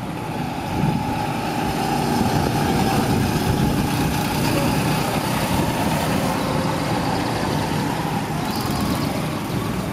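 Go-kart engines running as several karts drive round the track, a steady drone that rises a little about a second in.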